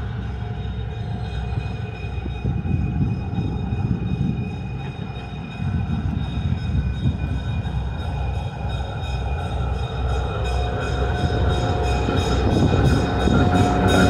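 Burlington EMD E5 diesel locomotive running as it pulls a train toward and alongside, a low engine rumble with a few steady tones above it, growing steadily louder over the last few seconds as it draws near.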